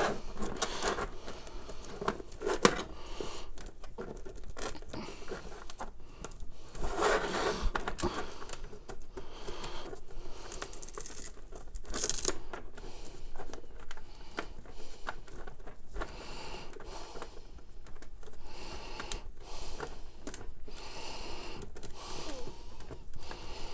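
A nylon-braided Cat 8 LAN cable being handled, coiled and strapped into a tight bundle by hand: irregular rustling, scraping and rubbing noises that come in uneven bursts.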